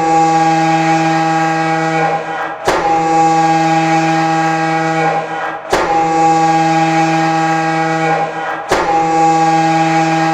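Federal Signal Thunderbolt siren sounding a coded fire-alarm signal: four steady, horn-like blasts of about two seconds each at one pitch, each cut off abruptly and restarted with a sharp click roughly every three seconds.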